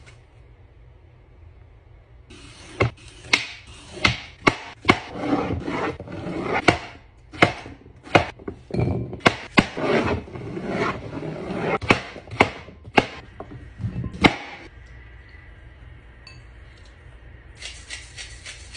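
Chef's knife chopping a peeled cucumber on a cutting board: a run of sharp, uneven chops with slicing and scraping sounds between them, stopping about fourteen seconds in.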